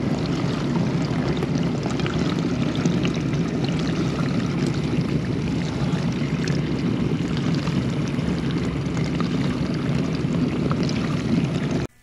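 Bosch 800 Series dishwasher running a wash cycle: a steady rush of water spraying and sloshing inside the tub over a low hum. It cuts off suddenly near the end.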